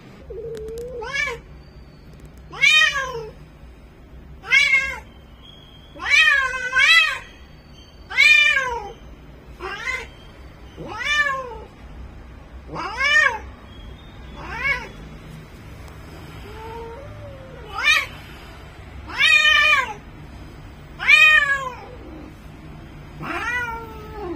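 Female Bengal cat in heat calling: a long series of loud, drawn-out meows, each rising and then falling in pitch, about one every one and a half to two seconds, the estrus call of a queen.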